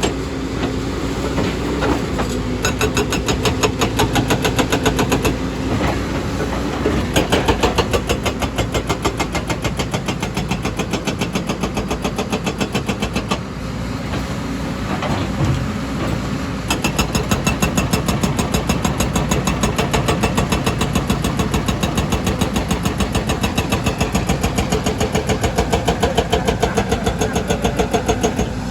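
Excavator's diesel engine working hard, with a fast, even pulsing that runs on with a few brief lulls.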